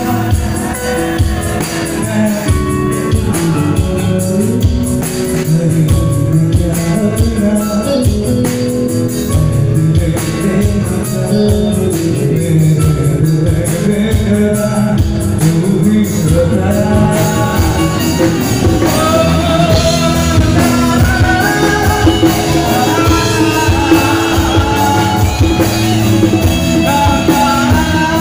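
Live amplified band music with a male singer on microphone, performing a Hindi film song over drums and keyboards. The vocal melody stands out more clearly in the second half.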